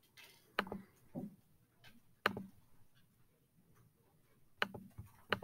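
A handful of faint, sharp computer mouse clicks, spaced irregularly, as cells are selected and a font-size menu is opened and chosen from; two or three come close together near the end.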